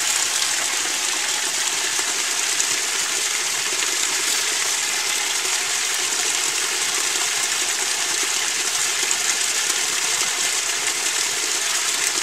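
Two spouts of water pouring from carved stone channels and splashing into stone basins below: a steady, unbroken rushing splash.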